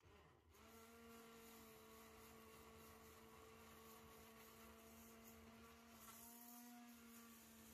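Immersion blender (600 W) motor running steadily, blending soup in a pot: a faint, even hum.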